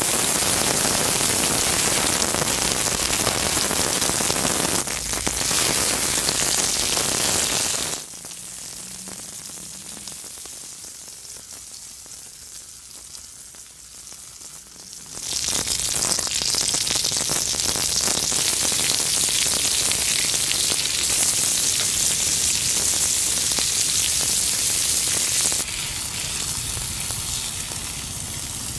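Steak searing on a hot flat stone over a wood fire, a dense, steady sizzle. The sizzle drops away sharply for about seven seconds in the middle, leaving a much quieter hiss, then comes back just as loud.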